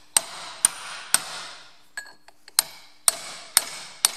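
Hammer blows on a steel punch driving the old, leaking rear axle seal out of a Ferguson TE20 outer axle housing. Seven sharp metallic strikes, three then a short pause then four, each with a brief ringing tail.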